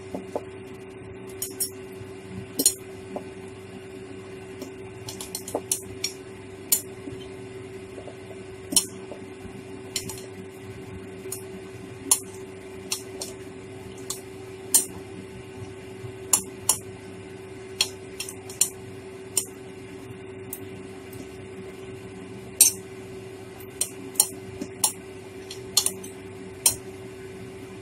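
A knife and fork clinking and scraping on a china plate while cutting a fried fish patty into strips: irregular sharp clicks, sometimes several in quick succession, over a steady low hum.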